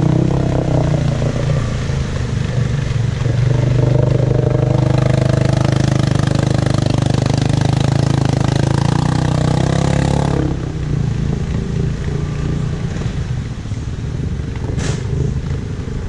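ATV engine running at steady high revs as the quad pushes through deep mud water, then dropping off sharply about ten seconds in and running on more quietly.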